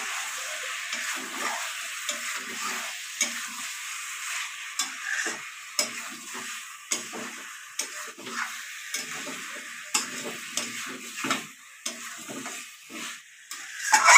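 Spiced chicken pieces and potatoes sizzling in oil in a metal kadai as they are kasha-fried, with a metal spatula stirring and scraping them. The spatula gives frequent short clinks against the pan over the steady hiss of the frying.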